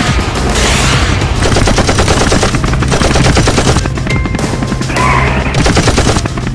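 Rapid machine-gun fire, a dense rattle of shots about a second and a half in that runs for a couple of seconds, over action-film music.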